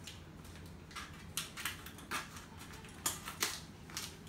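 Quiet room with a steady low hum and about seven faint, irregular clicks and rustles from the phone being handled as it is carried around.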